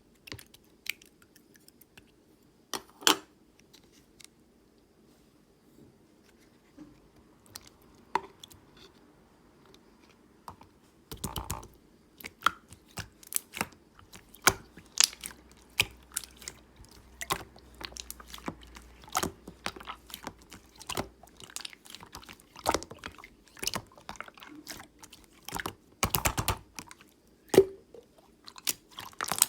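Clear slime being squeezed and pressed by hand, making sharp clicks and pops: a few scattered ones at first, then coming thick and fast from about a third of the way in.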